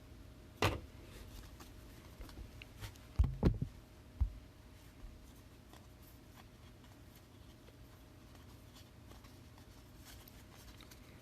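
Scattered knocks and clicks of trading cards being handled on a tabletop, loudest in a quick cluster about three seconds in, over a faint steady hum.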